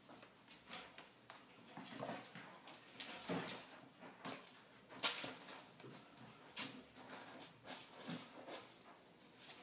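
A kitten pawing and scratching in granular cat litter inside a plastic litter box: irregular gritty scrapes and rustles, the loudest about five seconds in.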